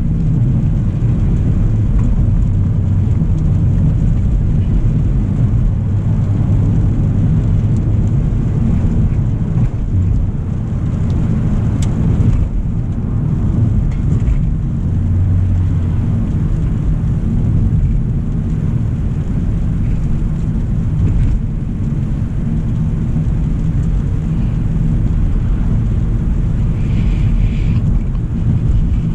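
A 2025 Hyundai Elantra SEL driving along, a steady low road and engine rumble with a faint hiss above it. There is one brief click about twelve seconds in.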